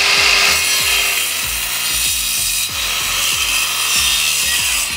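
Akaido AKCS125BL 5-inch (125 mm) cordless circular saw cutting across a thick plank of construction-grade hardwood, running steadily under load without bogging down. The cut finishes just at the end.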